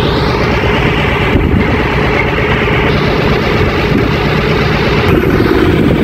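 Heavy truck engine running loudly and steadily.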